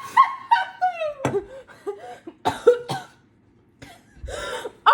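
High-pitched laughter in a run of quick squeals that fall in pitch, broken by coughing, breathy gasps.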